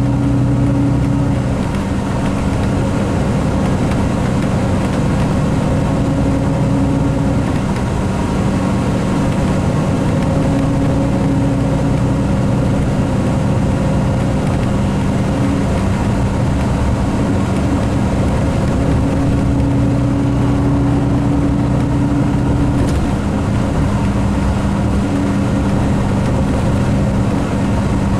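Cummins Westport ISX12 G natural-gas engine of an MCI D4500CT coach running steadily under way, heard from inside the coach. It makes a constant low drone with a few held tones over a rushing background.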